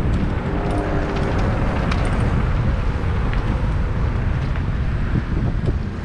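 Wind buffeting a GoPro microphone during a mountain-bike descent on a dirt singletrack, with tyres rolling over the trail and scattered small clicks and rattles from the bike.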